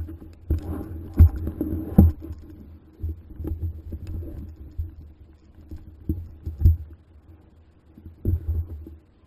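KTM 690 single-cylinder enduro motorcycle riding a dirt trail: a steady low engine rumble broken by irregular heavy thumps and knocks as the bike jolts over rough ground.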